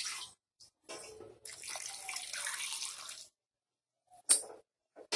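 Water being poured into a steel pot, a splashing rush for about two seconds, then a single sharp knock about four seconds in.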